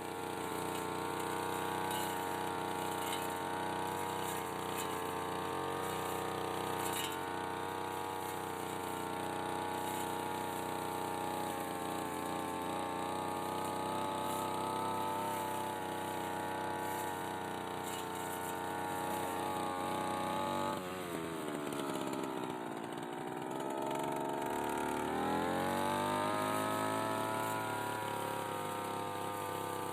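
Brush cutter with a propeller-type blade running at high revs while trimming a hedge. About twenty seconds in, the engine speed drops steeply and then climbs back up as the throttle is eased off and opened again.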